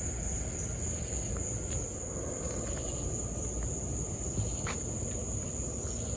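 Insects trilling in one steady, unbroken high-pitched tone, over a low background rumble with a few faint clicks.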